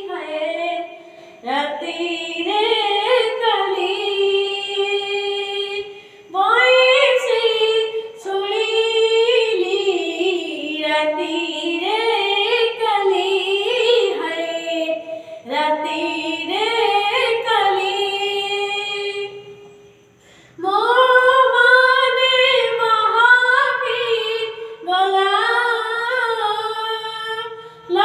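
A child singing an Odia devotional bhajan without accompaniment, the voice gliding between held notes in phrases broken by short pauses for breath.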